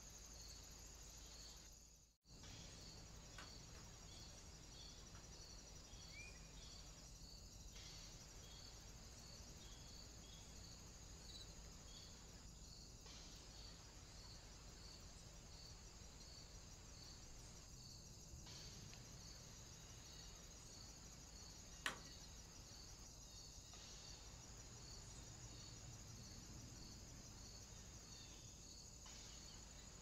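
Faint insects stridulating: a steady high buzz with regular short chirps about one and a half a second. A single sharp click sounds once late on, and the sound drops out briefly about two seconds in.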